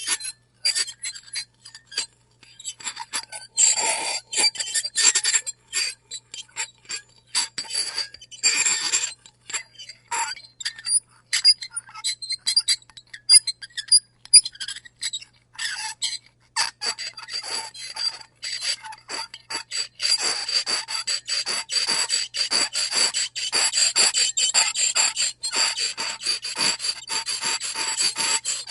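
A fork scraping across a plate in many short repeated strokes, with high-pitched squealing; the strokes run closer together and more continuously over the last third.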